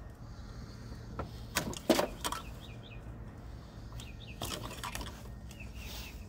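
Plastic wiring-harness connectors being unclipped and handled on the HBB ABS unit of a 2004 Toyota 4Runner: a handful of short sharp clicks and rattles, clustered about two seconds in and again about four and a half seconds in.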